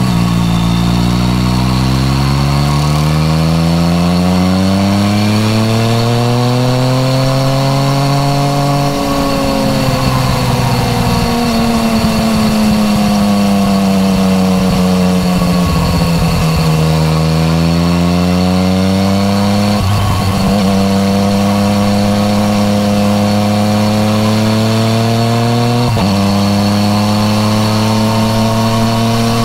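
2015 Yamaha MT-09 Tracer's three-cylinder engine through an Akrapovic titanium exhaust, heard from the rider's seat while riding: the note rises slowly, eases back down, then climbs again. Two short breaks in the note come in the second half.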